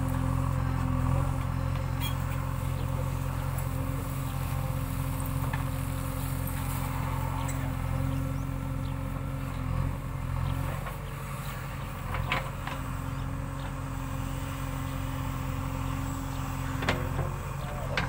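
JCB 3DX backhoe loader's diesel engine running steadily while the backhoe digs; the engine note dips for a few seconds past the middle, then comes back. A couple of sharp knocks cut through, one past the middle and one near the end.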